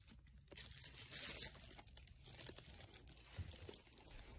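Faint rustling and crinkling handling noise from a hand-held phone being carried and panned around a room, with a few soft low knocks.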